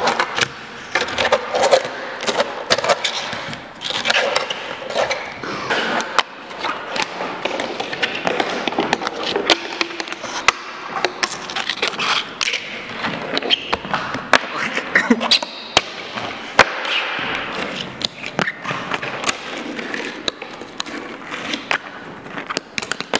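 Fingerboards popped, landed and slid on a plywood deck and concrete ledges: a steady run of small sharp clacks and scrapes, with indistinct voices behind.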